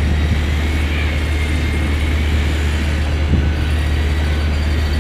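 Steady low drone of a ship's running machinery, with a faint, slightly wavering high whine above it.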